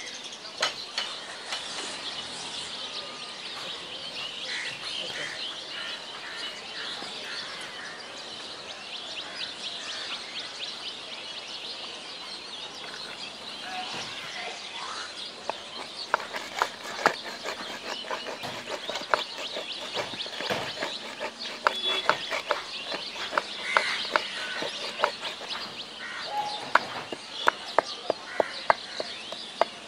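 Stone pestle grinding and crushing cumin seeds in a ribbed grinding bowl. In the second half it gives sharp knocks about twice a second. Birds chirp and chickens cluck throughout.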